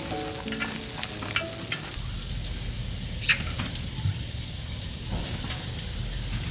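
Background music stops abruptly about two seconds in. Then food frying: a steady sizzle with scattered sharp crackles over a low rumble.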